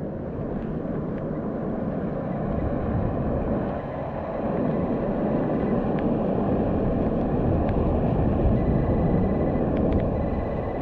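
Steady rumble of road traffic going by, rising and falling slightly, with a faint thin high tone near the end.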